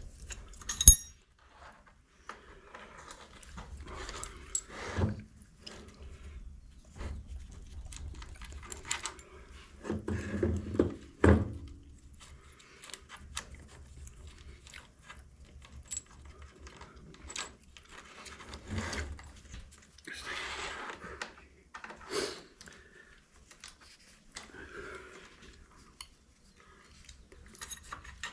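Metal lathe parts and tools being handled and adjusted, clinking and clanking in scattered, irregular knocks. A sharp metallic click about a second in is the loudest, and a cluster of heavier knocks comes around the tenth second.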